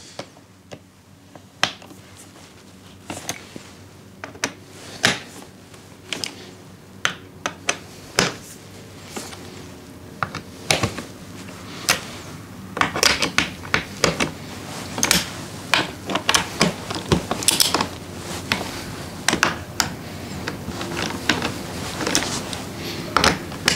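Ratchet torque wrench clicking in short runs as T40 Torx bolts on a motorcycle's pillion grab rail and rear tray are snugged up, with the odd clink of metal tools; the clicks come faster and closer together in the second half.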